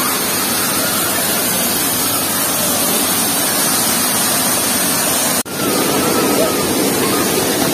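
Steady hiss and rush of falling water from an artificial waterfall, with faint children's voices in the background.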